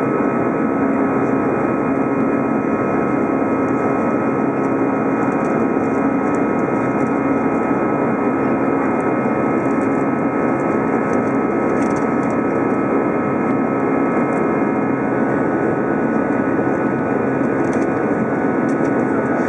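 Airbus A320 in flight, heard from inside the cabin: a steady engine and airflow drone with a few constant humming and whining tones running through it.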